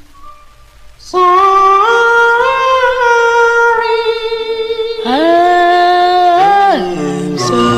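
A doo-wop vocal group singing held harmony chords, the voices stepping up in pitch together. It comes in suddenly about a second in after a faint fading tail. A second held chord starts about five seconds in and drops away near the end as a low bass part comes in.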